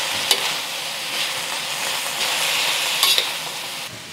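Pork and shredded cabbage sizzling in a wok as they are stir-fried with a metal spatula, with sharp clacks of the spatula against the wok about a third of a second in and again around three seconds in. The sizzle quiets just before the end.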